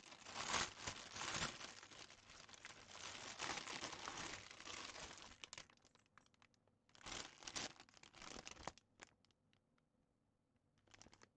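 Plastic packaging of a cross stitch kit crinkling and rustling as it is handled and opened, for about five seconds, then a shorter burst of crinkling a couple of seconds later, followed by a few faint ticks and near quiet.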